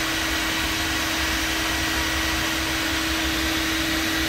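Homemade waste-oil furnace running hot: a steady rushing noise with a constant hum and an unsteady low rumble from the burning oil.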